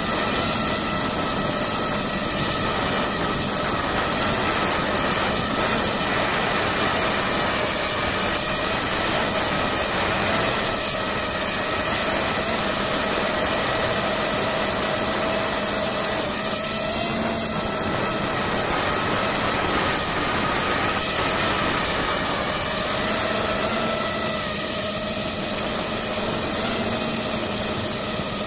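DJI FPV quadcopter's motors and propellers whining steadily over a rushing hiss, heard close up from a camera mounted on the drone; the pitch shifts slightly now and then.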